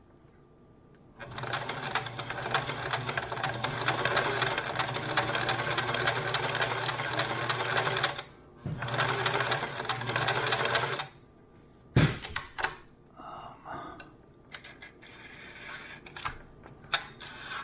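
Sewing machine stitching, a steady motor hum with rapid needle ticking. One run lasts about seven seconds, then a shorter burst of about two seconds follows. A single sharp knock comes just after it stops.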